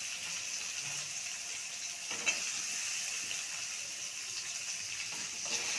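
Chopped capsicum sizzling steadily in hot oil with ginger and garlic paste, as it is stir-fried. A single short click comes about two seconds in.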